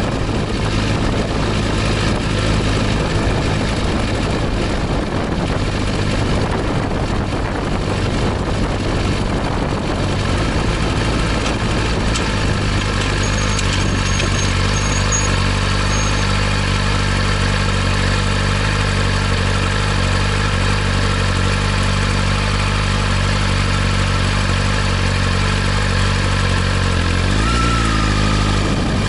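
Suzuki GSX-R1000R's inline-four engine running at low revs with wind and road noise as the bike slows, then idling steadily at a stop. The engine note steps down shortly before the end.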